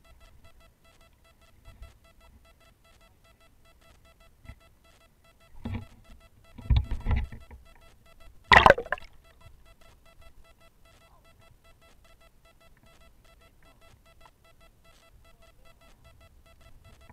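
Creek water sloshing and splashing against a camera at the water's surface, in short bursts about six and seven seconds in and loudest about eight and a half seconds in, over a faint steady electronic tone.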